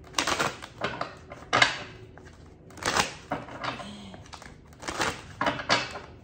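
Tarot cards being shuffled and handled, rustling and slapping together in short, irregular bursts with a few sharp clicks.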